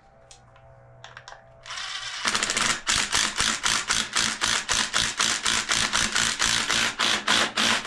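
A hand ratchet clicking rapidly and evenly, about five clicks a second, as an engine-case bolt is run in. The clicks start about two seconds in.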